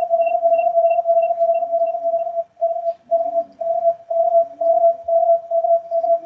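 Audio feedback howl from two laptops joined to the same Microsoft Teams call: a loud steady tone with a fainter high beeping that fades out in the first couple of seconds. From about two and a half seconds in, the tone pulses about twice a second.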